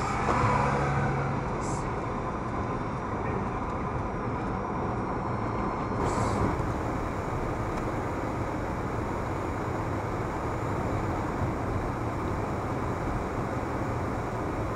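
Car driving along the road: steady tyre and engine noise heard from inside the cabin, with a brief low engine drone in the first second or so.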